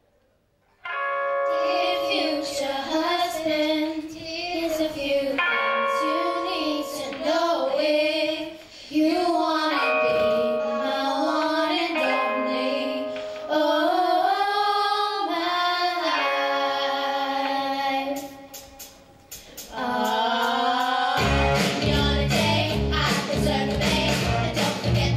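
A group of young girls singing together into handheld microphones, at first with no bass or beat beneath the voices. About 21 seconds in, a heavy bass beat comes in under the singing.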